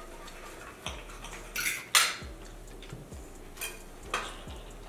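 Knives and forks scraping and clinking on ceramic plates as chicken is cut. There are a handful of scrapes and clinks, the loudest a sharp clink about two seconds in.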